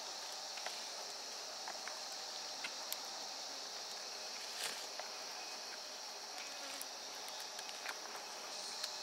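A steady, high-pitched chorus of forest insects, with a few short soft clicks scattered through it, the sharpest about halfway through.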